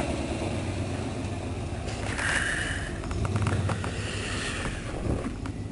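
A vehicle engine running with a steady low rumble, together with a hiss of outdoor noise. A brief higher tone rises over it twice, about two and four seconds in.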